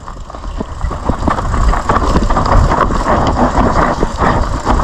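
Mountain bike descending a dry dirt trail: tyres running over dirt and the bike rattling with many small clicks and knocks, under a heavy rumble of wind on the microphone. It starts quieter and builds over the first second or so.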